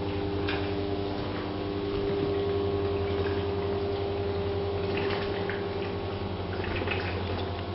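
Water trickling and dripping over a steady machinery hum, with scattered faint drips and ticks.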